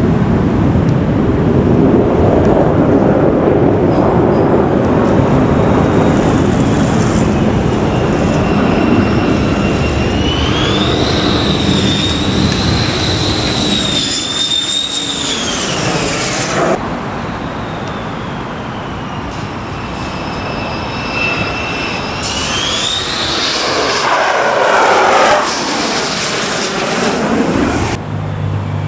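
Boeing F-15SG Strike Eagle jet fighter on landing approach. Its engines give a loud roar with a high whine that rises about a third of the way in, holds, then cuts off suddenly. A second whine rises near the end.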